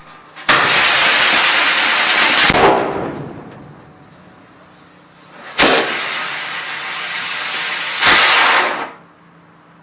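Small rocket motors firing in loud hissing rushes: one starts suddenly about half a second in and fades after a couple of seconds. Near the middle a sharp crack sets off a steady hiss, and a final louder burst cuts off abruptly about a second before the end.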